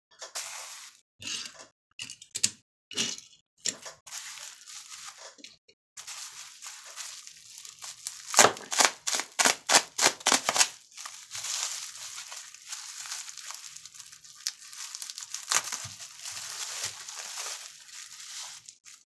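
Plastic bubble wrap crinkling and crackling as it is handled and pulled off a small diecast model car: short separate rustles at first, then continuous crinkling from about six seconds in, loudest a little past the middle.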